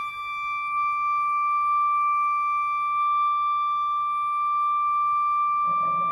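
Flute holding one long, steady high note, close to a pure tone. Near the end, lower instruments of the ensemble come in softly underneath.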